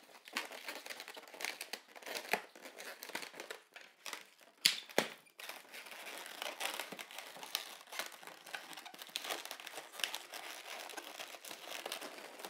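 Inflated latex modelling balloons rubbing and squeaking under the fingers as they are twisted and pressed into place, an irregular run of small squeaks and crinkles with one sharper click about four and a half seconds in.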